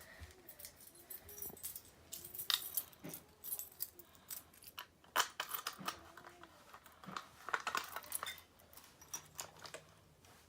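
A bunch of keys jangling, with irregular clicks and rattles as a key is worked in the lock of a Simplex T-bar fire alarm pull station.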